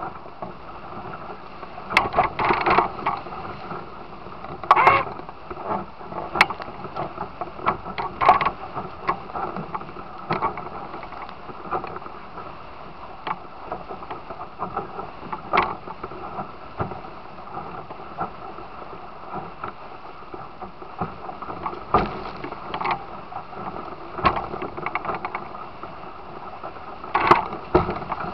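Musto Performance Skiff sailing fast through choppy water: a steady rush of water and wind, broken every second or two by irregular slaps and knocks as the hull hits waves.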